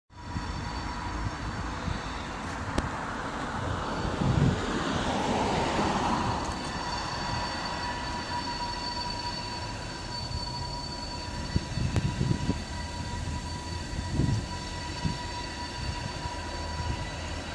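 Diesel freight locomotives running as a three-engine freight train starts off down the track, a steady low rumble that swells a few times. A steady high tone sounds over it from about six seconds in.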